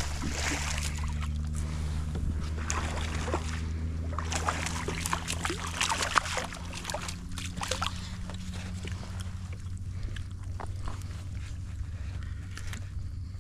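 Small snook hooked on rod and reel, thrashing and splashing at the surface as it is reeled in, with the splashing heaviest between about four and eight seconds in and dying away as it is lifted out. A steady low hum runs underneath.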